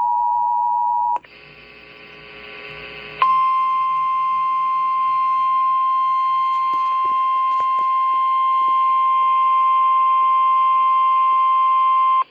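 Emergency Alert System tones over a radio broadcast. A loud two-note alert tone cuts off about a second in, followed by a couple of seconds of quieter hiss with faint tones. Then a single loud, steady alert tone holds for about nine seconds, announcing a severe thunderstorm warning.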